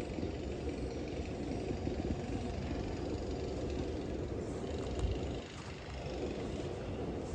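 Steady rumble of road traffic passing nearby, with faint high chirping over it and one sharp tap about five seconds in.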